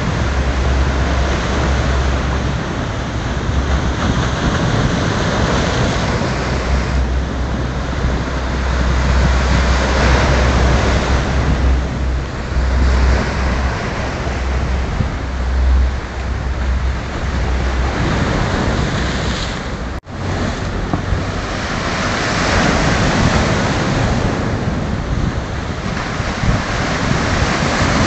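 Rough surf breaking heavily on the shore, a continuous wash of waves swelling every few seconds, with strong wind buffeting the microphone as a low rumble. The sound cuts out for a split second about two-thirds of the way through.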